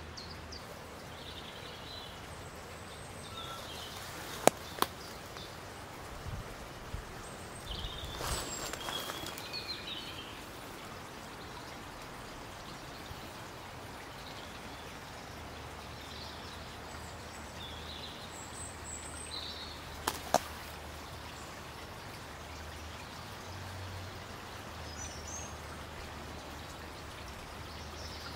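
Steady outdoor background hiss with faint, scattered bird chirps. There is a rustling patch about eight seconds in. Sharp clicks about four seconds in and again about twenty seconds in are the loudest sounds.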